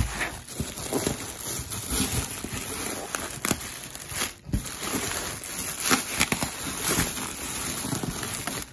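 Plastic bubble wrap crinkling and rustling as bubble-wrapped packets are grabbed and shifted about inside a cardboard box, with many small crackles and a brief lull about halfway through.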